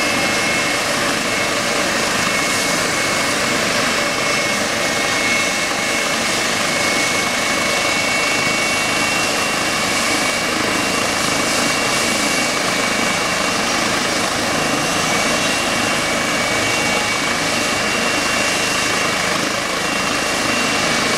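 Eurocopter EC135 helicopter running on the ground with its twin turbines and rotor turning: a steady turbine whine over rotor and engine noise, with no change in pitch or level.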